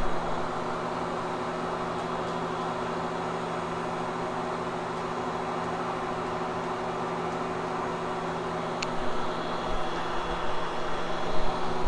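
Vacuum cleaner running steadily as it is pushed over a nylon carpet, a constant motor hum with airflow noise. Near the end the sound swells unevenly louder, with a single sharp click about nine seconds in.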